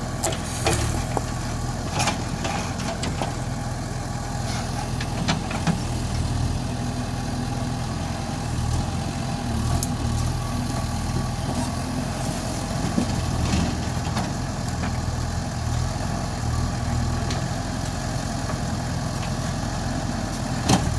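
JCB backhoe loader's diesel engine running steadily, with occasional sharp knocks and clacks.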